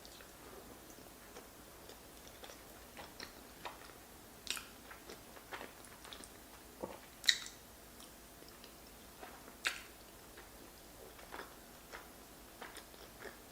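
Close-miked chewing of creamy fettuccine Alfredo with king crab: soft, wet mouth sounds with scattered short, sharp clicks, the loudest about seven and nine and a half seconds in.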